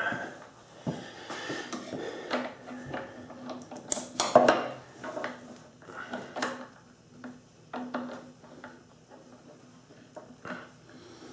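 Irregular light metallic clinks and taps of small steel parts being handled and fitted by hand on the side of a South Bend drill press head, with a sharper clink about four seconds in.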